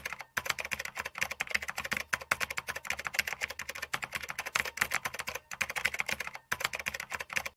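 Rapid computer-keyboard typing clicks, many per second with a few brief pauses, cutting off abruptly at the end.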